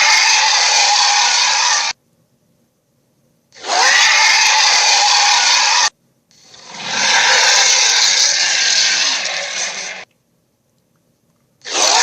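Dragon sound effect played by a Funko Pop dragon toy: harsh, raspy noise in three bursts of about two to four seconds each. Each burst cuts off suddenly, with short silences between them.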